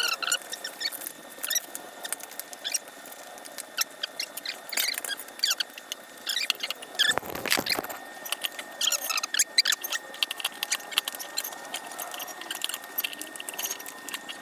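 Squeaks, scrapes and small clicks of a CushCore foam tyre insert and rubber mountain-bike tyre being worked by hand against the rim. There is one heavier thump about seven seconds in.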